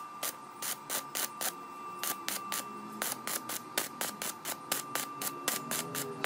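Stick (arc) welding on steel sprocket pieces, crackling and hissing, over background music with a quick, even beat.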